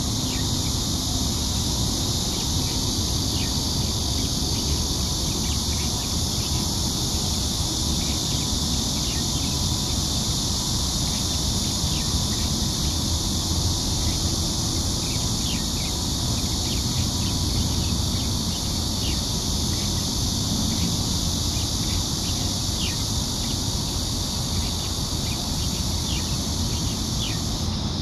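Steady high, even hiss of an insect chorus, with short high chirps scattered throughout and a low rumble of wind on the microphone.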